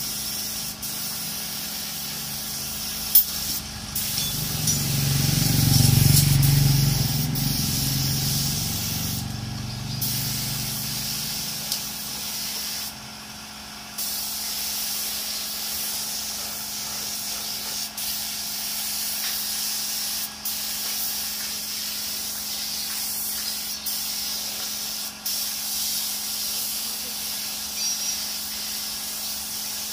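Air spray gun hissing steadily as clear coat is sprayed onto a motorcycle frame, broken by a few short pauses when the trigger is let go. A low rumble swells and fades between about four and twelve seconds in.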